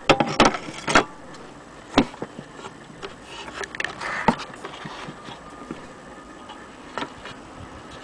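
Handling noise: a quick cluster of sharp knocks and clicks in the first second, then single knocks about two, four and seven seconds in, with faint scraping between them.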